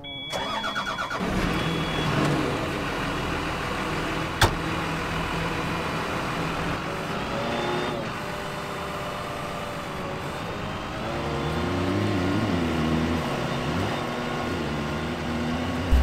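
Wheel loader's diesel engine cranking and catching, then running, its speed rising and falling. A steady high beep sounds during the start, and a sharp click comes about four seconds in.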